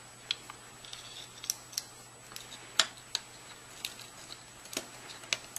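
Small, irregular clicks and taps as a replacement circuit board is handled and fitted into a Mobius action camera's plastic case, about a dozen in all, the loudest a little under three seconds in.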